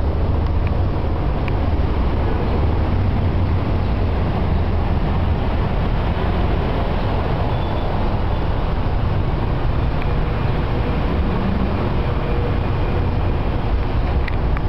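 Steady road traffic noise from passing cars and buses, with a strong low rumble.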